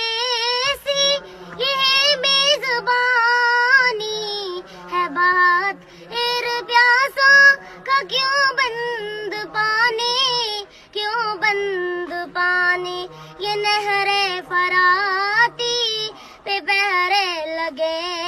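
A young girl singing an Urdu naat solo in a high voice, in phrases with long held notes that waver and bend in pitch.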